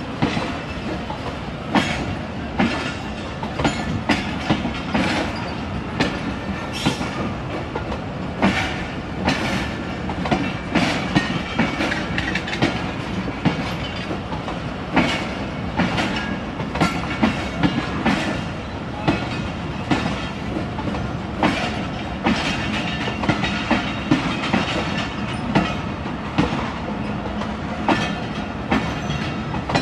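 Passenger train coaches rolling past, their wheels clicking over rail joints in a steady clickety-clack over a continuous rumble.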